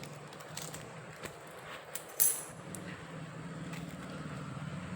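Silver coins being handled: a few faint clicks and one sharper clink about two seconds in, over a low steady hum.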